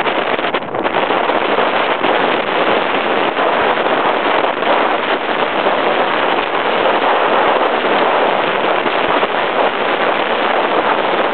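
Loud, steady rush of whitewater from a river rapid's standing wave, mixed with wind blowing on the microphone.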